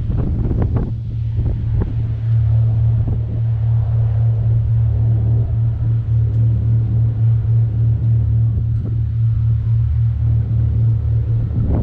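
Steady low engine drone, holding one pitch, with gusts of wind buffeting the microphone in the first couple of seconds.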